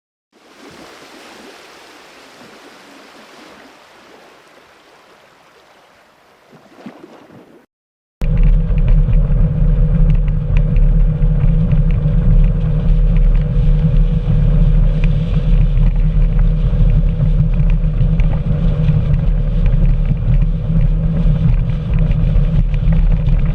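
A quiet, even hiss for the first seven seconds or so, then a sudden cut and a motorboat's engine running with a loud low rumble and a steady hum.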